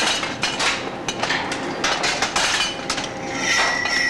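Metal clanking and knocking on a drilling rig floor: a quick, irregular run of sharp bangs and clinks from pipe and tools being worked. A high-pitched squeal comes in about three and a half seconds in.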